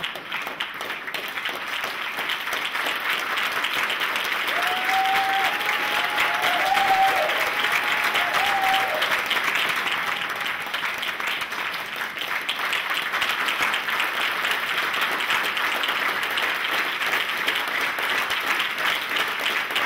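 Audience applauding: a dense patter of many hands clapping. It swells over the first couple of seconds, then holds steady.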